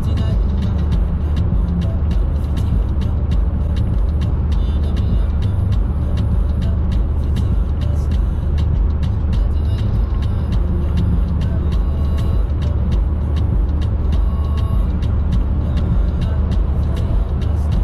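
Car driving at a steady speed: a steady low road and engine rumble.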